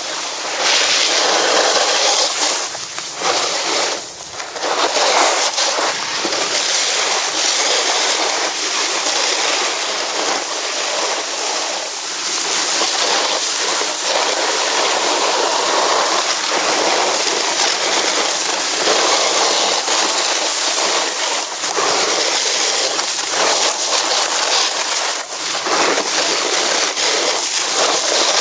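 Snowboard sliding and turning over packed snow: a loud, steady scraping hiss that dips briefly a few seconds in, mixed with wind rushing over the microphone.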